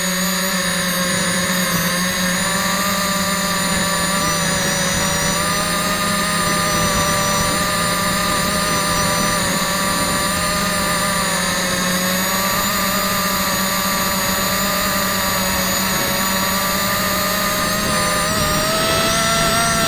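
Brushless motors and propellers of a quadcopter whining steadily in flight, several pitches at once that waver with throttle and climb a little near the end.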